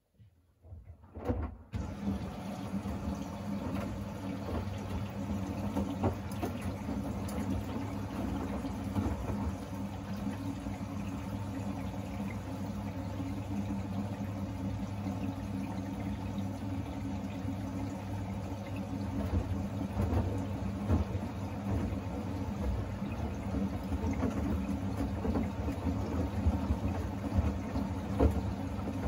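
Siemens iQ700 front-loading washing machine in its final rinse: a steady motor hum with water running and sloshing in the drum, starting abruptly about a second and a half in.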